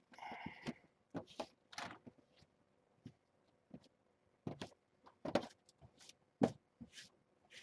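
Scattered, irregular knocks, scrapes and rustles of handling inside a kitten pen, with a longer rustle just after the start.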